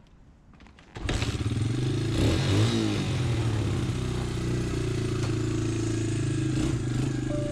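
Dirt bike engine starting up about a second in, revving up and down briefly, then running steadily as the bike pulls away.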